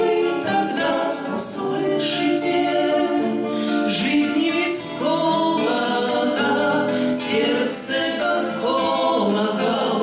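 Two women singing a bard song together, accompanied by two strummed acoustic guitars.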